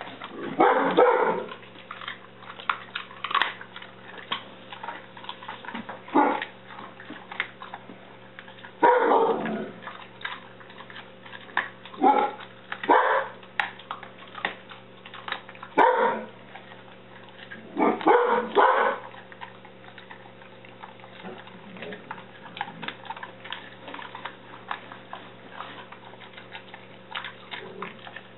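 A dog barking in short, loud single barks every couple of seconds, about eight in all, mostly in the first two thirds. Between them come quick clicking crunches of a wolf hybrid chewing a raw bone-in pork rib.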